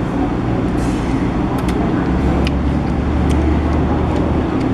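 Road traffic: a vehicle engine runs nearby as a steady low rumble that deepens and strengthens from about halfway in until near the end, with a few light clicks over it.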